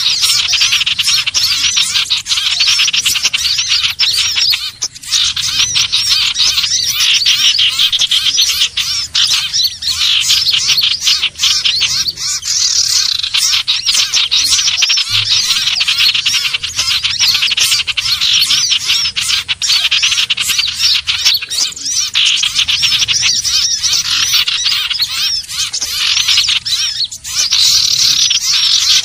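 Common iora (cipoh/sirtu) calls: a dense, unbroken stream of rapid high chirps and short whistles from several overlapping birds, as on a looped bird-lure recording.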